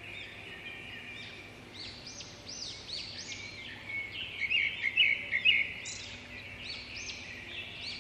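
A flock of birds calling, many short chirping notes overlapping, busiest and loudest about four to five and a half seconds in.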